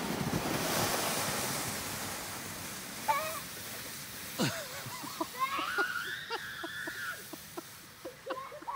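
A rushing hiss, then a short call and a high, drawn-out voice that rises and holds for about a second and a half. Quick light footsteps crunch in snow at about three a second through the second half.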